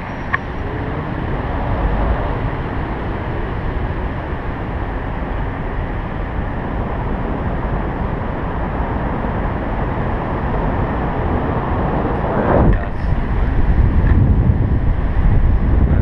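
Wind rushing over a GoPro's microphone during a tandem paraglider flight: a dense, steady rumble that grows louder after about twelve seconds.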